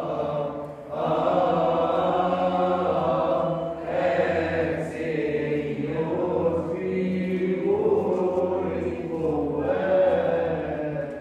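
Voices chanting together in long held notes that shift slowly in pitch, over a steady low sustained note.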